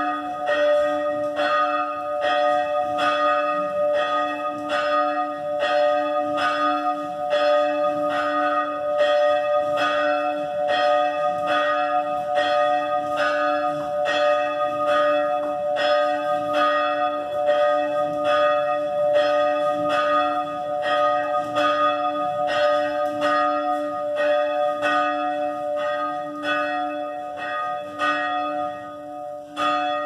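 Church bell ringing the noon bell, struck over and over in a quick, steady rhythm with the tones ringing on between strokes, growing a little fainter near the end.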